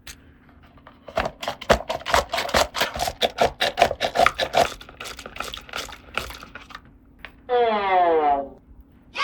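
A rapid run of clicking, clattering taps, several a second, for about five seconds, followed near the end by a short whistle-like tone that slides down in pitch.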